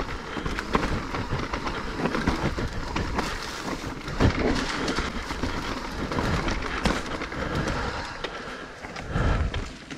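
Mountain bike clattering over a rough, rocky trail on a descent, with a dense run of sharp knocks and rattles from the wheels, frame and chain as the tyres hit stones.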